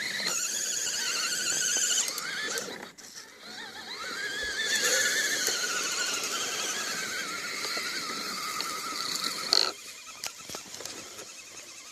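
Electric motor and gear whine of a radio-controlled rock crawler, its high pitch wavering up and down with the throttle. It cuts out about ten seconds in, after a short sharp sound.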